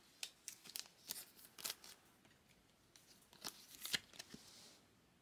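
Faint clicks and rustles of a trading card being handled, with a couple of sharper clicks about three and a half to four seconds in.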